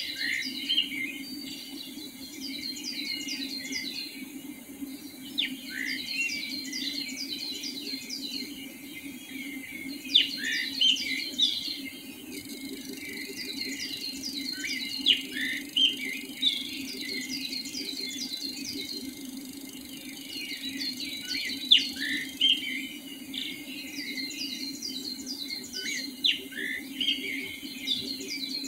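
Several wild birds singing at once: a busy mix of overlapping chirps and quick repeated downward-sweeping notes, with a steady low hum underneath.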